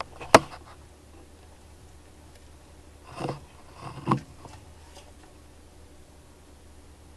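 Pac-man frog gulping down a mouse in its tank: a sharp knock about a third of a second in, then two short scuffling bursts a little after three and four seconds in.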